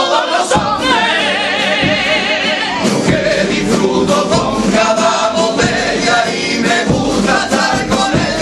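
Male comparsa chorus singing a Cádiz carnival pasodoble together in several voice parts, with a long held note wavering in vibrato about a second in.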